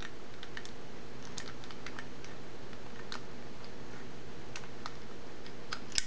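Light metallic clicks and taps, a dozen or so at irregular spacing, from the parts of a Medeco padlock being handled and fitted back together.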